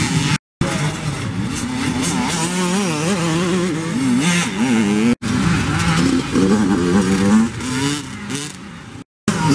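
Small youth dirt bikes racing, several engines at once, their pitch rising and falling as the riders throttle on and off. The sound drops out briefly twice, about half a second in and near the end.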